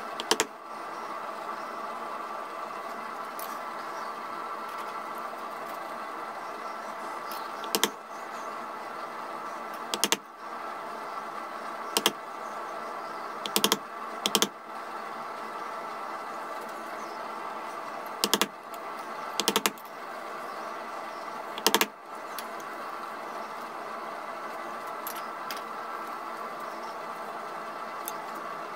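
Carving chisel pressed by hand into a wooden gunstock to make stab cuts along a carved outline. It gives about ten sharp clicks at irregular intervals, a few in quick pairs, over a steady background hiss.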